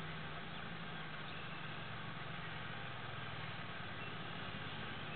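Four-wheeler (ATV) engines running steadily at a distance: a low, even hum under a steady hiss.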